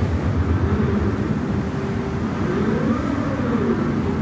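Steady low rumble of a car ferry's engines and propellers as it comes in to the dock. About two and a half seconds in, a brief tone rises and then falls in pitch.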